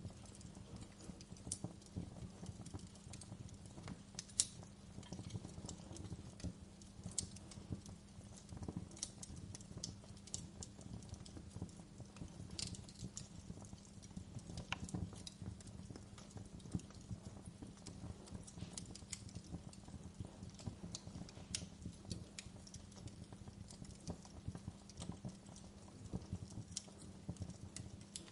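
Fire crackling: a dense, irregular low crackle with sharp pops scattered through it at uneven intervals.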